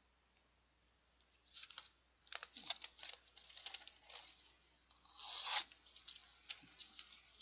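Steel folding-knife blade slicing through a sheet of paper: a series of rough, scratchy tearing strokes starting about a second and a half in, the longest and loudest near the end. The owner judges the edge not very sharp, so the paper tears raggedly rather than cutting cleanly.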